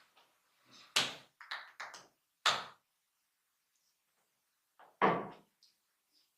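Hands striking the body in a percussive massage: a loud slap about a second in, two lighter ones right after, another loud slap a moment later and a last one about five seconds in.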